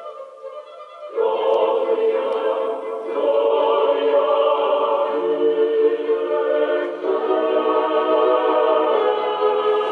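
Background choral music: a choir singing sustained chords, coming in loudly about a second in after a quieter opening.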